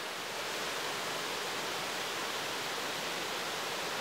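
Rushing floodwater: a steady, even hiss of water streaming down a bank into a channel.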